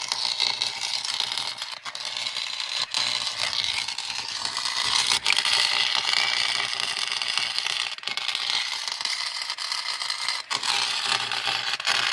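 Welding arc from a small Harbor Freight welder laying a bead on steel test pieces: a steady crackling hiss, broken by a few brief stops.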